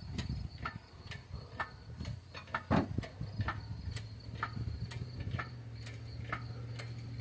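Engine hoist being jacked up to lift a Ford 302 V8 on its chain: a steady run of clicks, about two a second. A low steady hum joins about three and a half seconds in.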